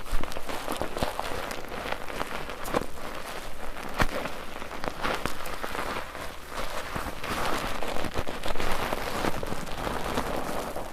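Bar soap being lathered in a mesh foaming net: wet squishing and crackling of foam, with many small clicks and pops throughout.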